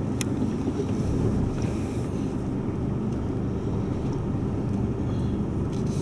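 Four-wheel-drive's engine and drivetrain running at low speed as it creeps along a rough dirt track, heard from inside the cab as a steady low rumble. A short click sounds just after the start.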